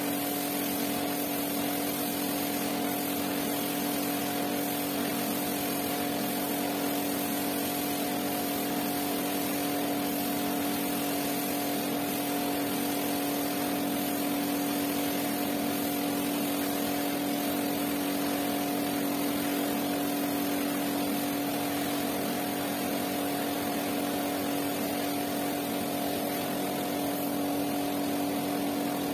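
Pressure washer running with a constant hum, its water jet spraying over a soaked rug to rinse it.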